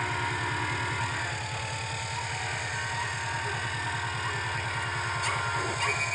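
Workshop machinery running with a steady, rapidly pulsing low drone; a steady high-pitched whine joins near the end.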